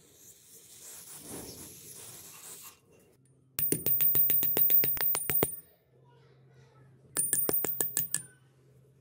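Aerosol lubricant hissing as it is sprayed through a straw into a rusty plier's pivot joint. Then two runs of loud, rapid metallic clicking, about nine clicks a second, as the plier is worked at the joint: the first run lasts about two seconds, the second about one.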